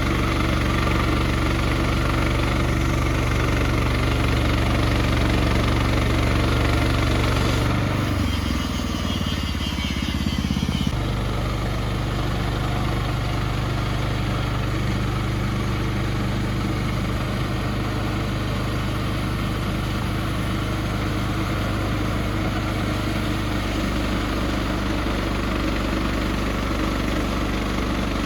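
Small gas engine of a portable sawmill running steadily. Its note drops and wavers for a few seconds about eight seconds in, then settles again.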